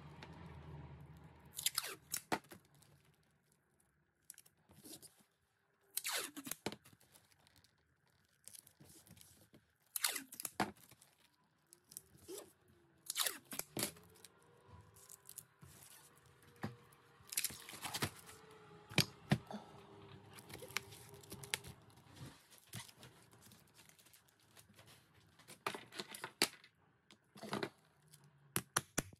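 Hand cutting at a leatherwork bench: a series of short, irregular tearing scrapes, some drawn out for about a second, with quiet gaps between strokes.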